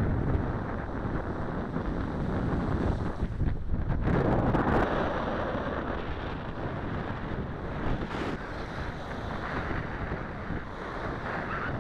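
Wind buffeting the Mobius action camera's built-in microphone, a steady low rumbling noise that swells briefly about four seconds in.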